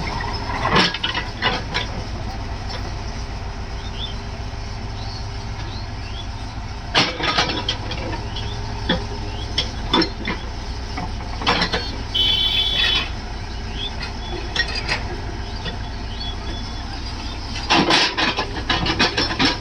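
Backhoe loader's diesel engine running steadily, with sharp metallic clanks and knocks now and then and a brief high squeal about twelve seconds in.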